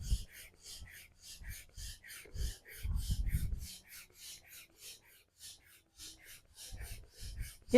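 Hand pump pushing air into an inflatable kayak's side chamber: a fast, even run of short air puffs, several a second, with a few low thumps along the way.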